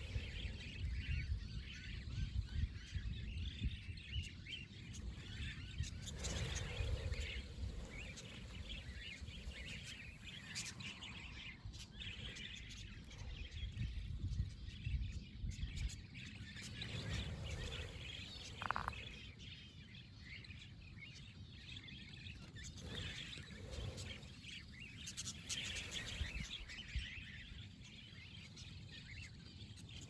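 A flock of wild budgerigars chirping as it wheels overhead: many small, high calls overlapping in a continuous chatter, with a low, uneven rumble underneath.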